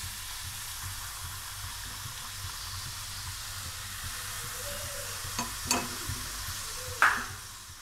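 Besan fafda strips deep-frying in hot oil, a steady sizzle. A few short sharp knocks cut through it, the loudest about seven seconds in.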